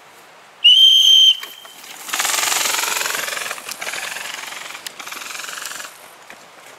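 A shrill whistle blast lasting under a second, then airsoft electric guns firing on full auto in a fast, even rattle for nearly four seconds, loudest at first.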